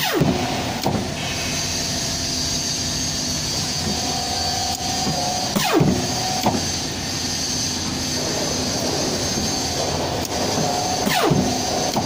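Hydraulic paper guillotine cutter running, its hydraulic system humming steadily. Three cutting strokes come about five and a half seconds apart, each a sharp sound falling in pitch; the first two are followed by a knock less than a second later.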